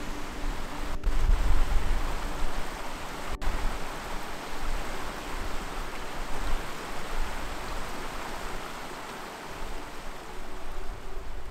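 Small mountain stream rushing and splashing over rocks in shallow cascades, a steady rush of water, with a low rumble about a second in.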